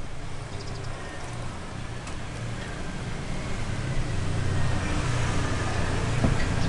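Electric winch on a 4x4's front bumper reeling in its rope under load: a steady motor drone that grows gradually louder.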